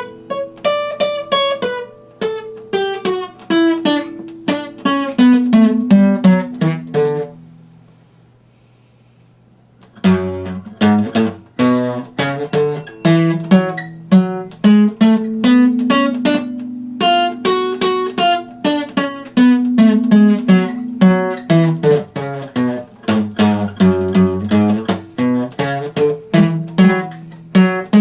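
Epiphone acoustic guitar played with plucked notes and chords. About seven seconds in, the playing stops and the notes ring away; after a pause of about two seconds it starts again.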